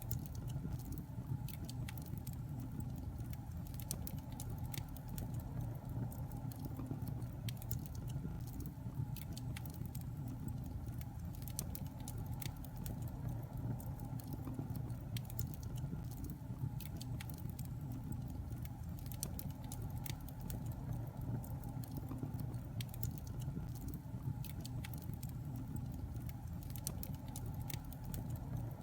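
Wood fire crackling in a fireplace: frequent short snaps and pops over a steady low rumble of the flames.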